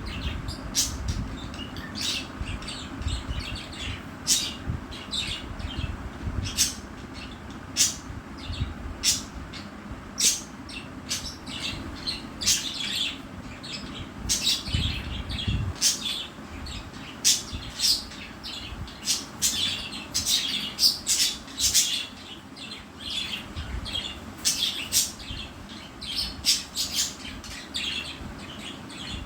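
Two pet budgerigars chirping and squawking in many short, sharp calls, coming thickest through the middle stretch.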